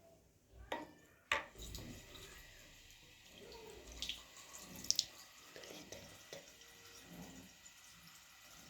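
Faint water running from a tap, with a sharp click a little over a second in and two quick clicks around five seconds.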